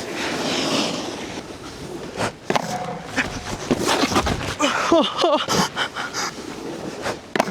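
Snowboard sliding and scraping over hard-packed snow, with repeated sharp knocks and clatter from the board.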